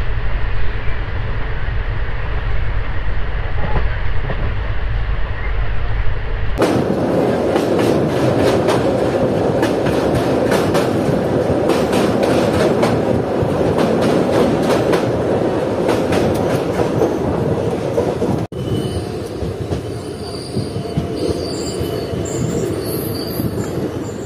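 Parasuram Express passenger coaches running, heard from the open doorway. At first it is a low wind rumble on the microphone. About six and a half seconds in, this gives way to a louder clatter of wheels, with many sharp clicks, as the train crosses a river bridge. In the last few seconds short high-pitched wheel squeals come through as the train rolls into the station.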